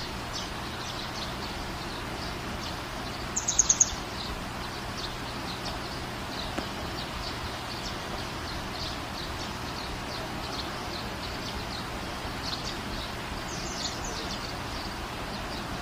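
Small birds chirping over a steady outdoor hiss, with short high calls scattered throughout. About three and a half seconds in comes a louder, quick run of about five high notes.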